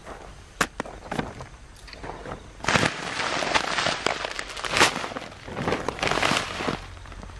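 Several bursts of close crunching and crackling with a few sharp clicks before them: footsteps on dry, clumpy tilled soil and a plastic fertilizer sack being handled.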